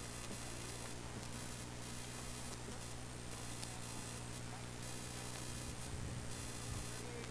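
Steady electrical hum with hiss and a low uneven rumble: the background noise of an old camcorder videotape recording.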